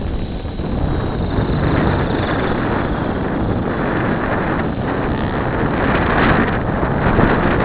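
Logo 600 electric RC helicopter in flight: steady rotor and drivetrain noise with wind buffeting the microphone. A faint high-pitched squeal rides over it, which the owner takes for a bad bearing, possibly linked to a slipped main-shaft collar or loose tail bearings.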